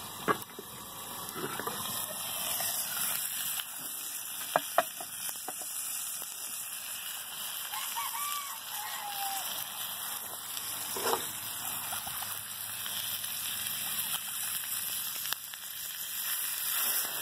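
Sausage frying in a skillet held over an open wood fire: a steady sizzling hiss, with a few sharp pops from the fire.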